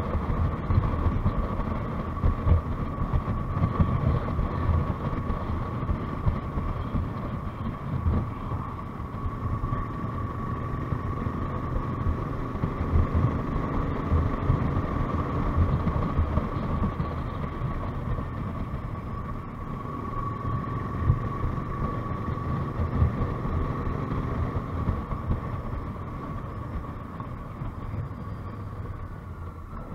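Motorcycle engine running at a steady cruise with road and wind rumble, heard from the rider's own bike, with a steady high whine on top.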